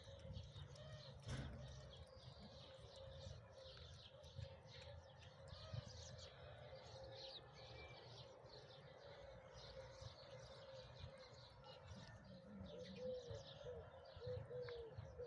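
Faint birdsong: small birds chirping throughout, with a run of repeated low cooing calls, typical of a pigeon or dove, growing clearer in the last few seconds.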